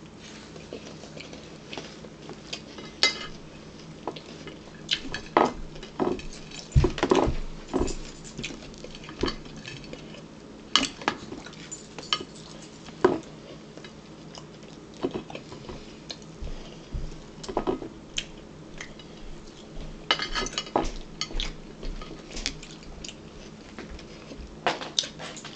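Forks clinking and scraping against a ceramic plate and a plastic bowl during a meal: scattered short, irregular clinks.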